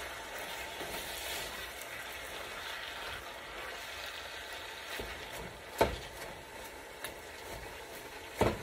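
Ground beef and sliced onions sizzling in a pot as a wooden spoon stirs them, with two sharp knocks, one about six seconds in and one near the end.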